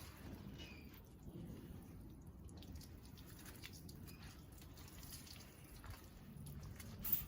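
Faint water dripping and trickling, with scattered light ticks over a low rumble and one sharper knock just before the end.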